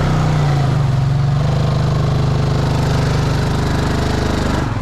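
Off-road vehicle's engine running steadily under load as it crawls out of a sunken mud hole.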